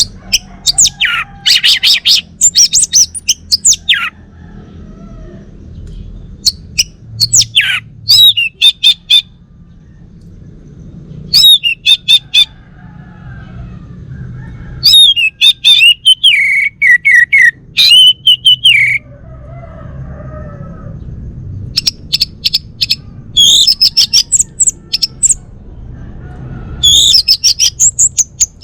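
Male Bali orange-headed thrush singing: loud phrases of rapid, varied whistled notes in bursts a second or two long, separated by short pauses, over a low background rumble.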